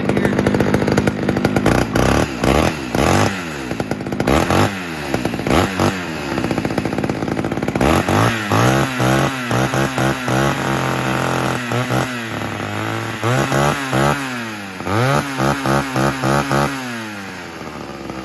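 Homelite Super XL Automatic two-stroke chainsaw running, its throttle opened and released over and over: the engine revs up, holds briefly, and falls back to idle, with a longer held rev in the middle and shorter blips near the end.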